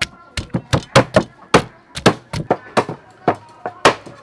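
A wooden pestle pounding spice paste in a wooden mortar together with a cleaver chopping raw duck meat on a wooden cutting board: a rapid, uneven run of knocks, about three to four a second, some dull and heavy, others sharp.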